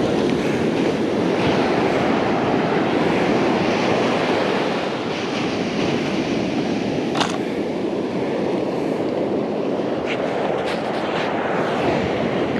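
Steady rush of ocean surf on the beach, mixed with wind on the microphone, with a few brief clicks about halfway through and again near the end.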